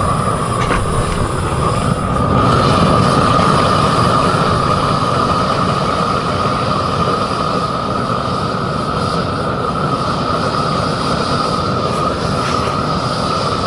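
Propane weed burner burning steadily, a loud even rush of flame with a constant high tone running through it, heating knife blades to hardening (austenitizing) temperature.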